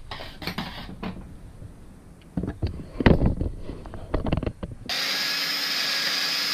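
Knocks and clatter of things being handled and set down on a workbench. Near the end, a cordless drill runs at a steady speed for about two seconds.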